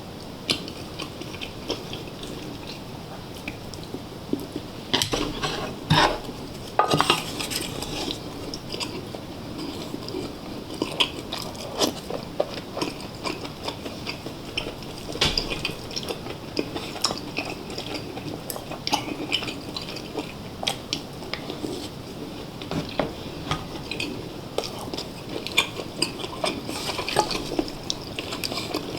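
Eating utensils clicking and clinking against dishes, with biting and chewing, in a steady run of small knocks; a few louder clinks come about five to seven seconds in.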